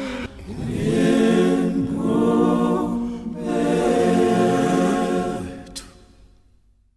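Unaccompanied voices singing together in harmony, fading out over the last couple of seconds.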